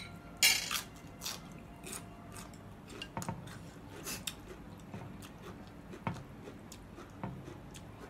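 Close-up eating sounds: a sharp bite at the start, a short crunchy burst about half a second in, then chewing with scattered light clicks of chopsticks and a spoon in a ceramic soup bowl.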